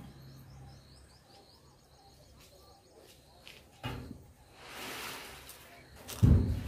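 A large metal storage drum being tipped and shifted on a concrete floor: a knock about four seconds in, a short scraping noise, then a heavy low thump near the end as its base comes down.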